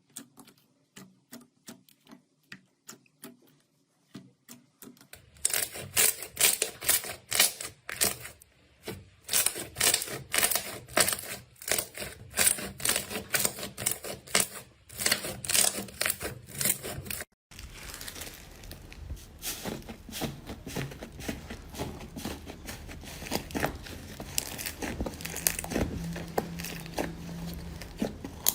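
Slime being handled and pressed by hand. It gives sparse soft pops at first, then loud, rapid crackling and popping from about five seconds in. About two-thirds of the way through it switches abruptly to a denser, quieter crackle.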